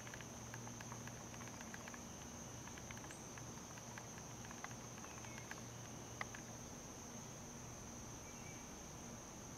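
Steady high-pitched insect chorus, typical of crickets, over a faint low hum, with scattered faint ticks and one sharper click about six seconds in.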